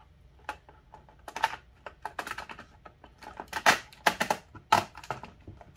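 Irregular clicks and plastic taps of a blade fuse block with #8 bolts fitted through it being turned over and set onto a clear plastic mounting plate, the loudest clacks in the second half.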